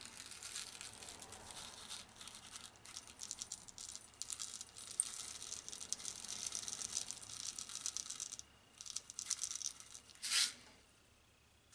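Lead shot pellets poured from a container into a resin-lined pocket of a metal locomotive frame, a dense rattling patter of tiny high-pitched ticks that stops about eight seconds in. A few scattered ticks and one brief louder rustle follow near the end.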